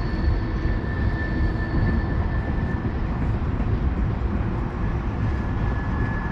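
Steady rushing noise of river water flowing, heaviest in the low end, with a faint steady high tone running through it.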